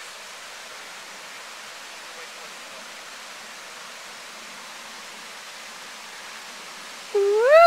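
Steady rushing of a rain-swollen mountain stream below. Near the end a person's short, loud cry rises and falls in pitch.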